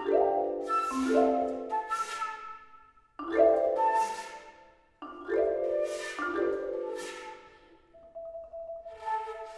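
Flute and marimba duo playing. Marimba chords are struck about six times and left to ring and fade, with two near-silent breaks between groups. Softer held notes, likely the flute, sound near the end.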